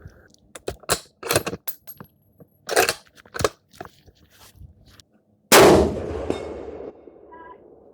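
A single rifle shot from a 6.5 Creedmoor, the loudest sound, about two-thirds of the way in, dying away over a second or so. Before it come several sharp clicks and knocks, and a short faint ring follows a couple of seconds later.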